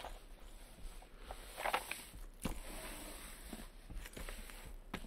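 Handling noise from a diamond-painting canvas: its paper sheet and plastic protective film rustling as they are folded over and smoothed flat by hand, with a brief rustle and a couple of soft taps.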